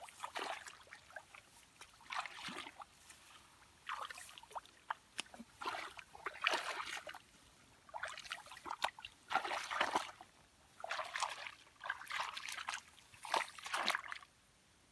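Shallow, muddy rice-field water splashing and sloshing in short bursts every second or two, as hands grope through it for fish.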